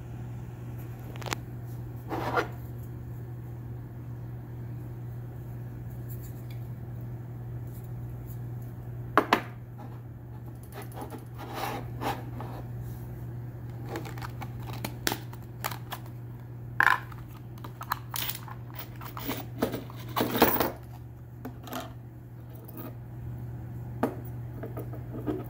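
Scattered clicks, taps and scrapes of hands handling plastic and metal parts: the red plastic cap of a gas canister and a small folding camping stove, with a longer rustle about two-thirds of the way through. A steady low hum runs underneath.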